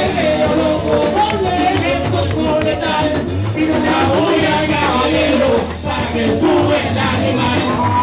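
Cubaton (Cuban reggaeton) song performed live, with singing over the band.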